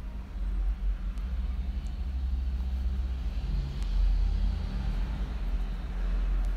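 Steady low engine rumble with no voices over it.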